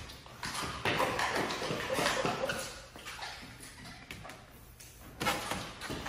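Clear paint protection film rustling and crinkling in irregular surges as it is stretched and worked by hand over a wet car bonnet, with water sprayed onto it.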